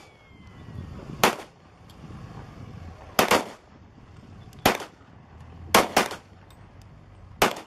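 Six shots from a Springfield XD40 pistol in .40 S&W, fired at an uneven pace, two of them in quick succession near the middle.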